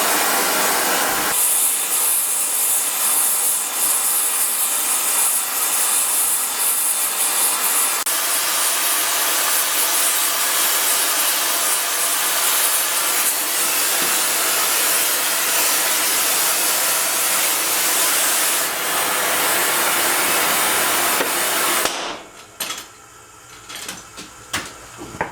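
Gas heating torches burning with a steady hiss on a welded steel shaft, heating it to about 1150°F to stress relieve the weld. About a second in the hiss grows louder as a second torch is brought in. Near the end it stops suddenly and a few metal clanks follow.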